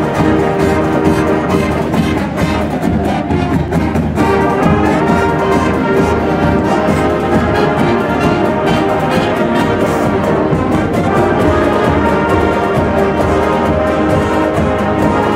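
Background music: orchestral music with brass, playing steadily.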